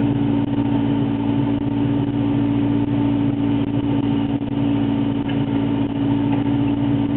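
An engine running at a steady speed, a constant even hum with no revving.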